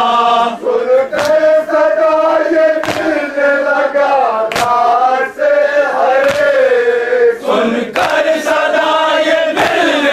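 A crowd of men chanting a nauha, a Shia mourning lament, in unison. Loud unison slaps of hands on chests (matam) strike in time, about one every second and a half.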